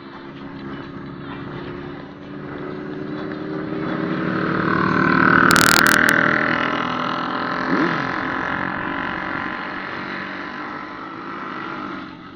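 Honda CBR600RR's inline-four engine running as the motorcycle is ridden. It grows louder to a peak about five to six seconds in, then fades.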